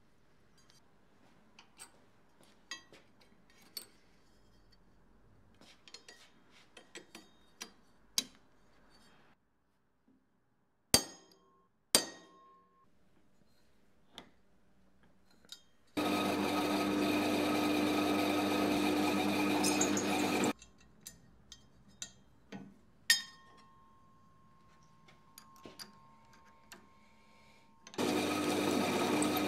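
Small metal clinks and taps of parts being handled, then two sharp knocks. An electric motor-driven machine runs steadily with a strong hum for about four seconds, stops, and starts again near the end.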